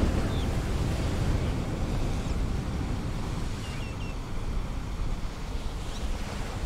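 Ocean surf washing onto the beach, with wind buffeting the microphone: a steady noise heavy in the low end.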